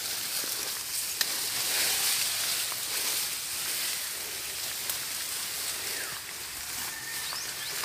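Leaves and fern fronds rustling and brushing as someone walks through dense undergrowth, over a steady high hiss, with a few faint ticks.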